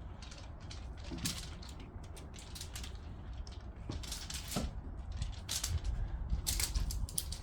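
Scattered crinkly rustles and light clicks from a pet playing with a kashakasha crinkle teaser toy, busiest about a second in and again in the second half.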